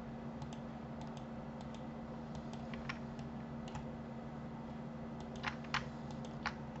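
Light clicks of a computer mouse and keyboard, scattered and faint, with three sharper clicks in the last couple of seconds, over a steady low hum.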